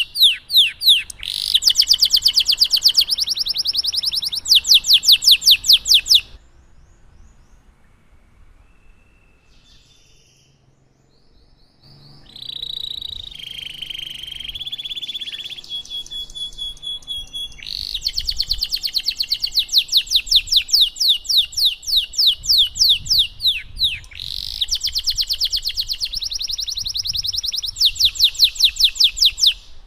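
Domestic canary singing: fast rolling trills of rapidly repeated sweeping notes. The song stops about six seconds in, comes back as softer warbling, then the loud trills resume until just before the end.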